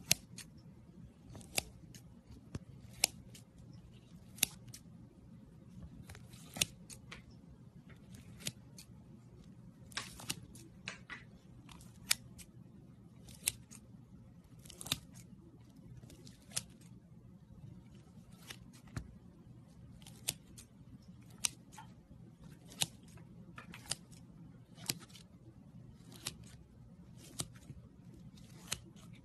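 Metal scissors snipping again and again into a soft, glittery lump: short, crisp cuts about once a second, over a faint steady low hum.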